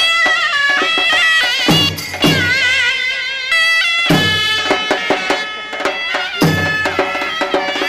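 Egyptian mizmar baladi, a loud double-reed folk shawm, playing an ornamented melody with wavering, trilled runs and held notes, over a few sharp drum strokes.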